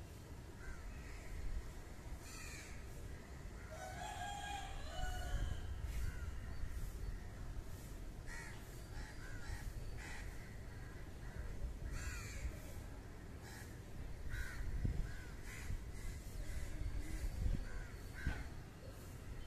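Crows cawing in short calls every few seconds.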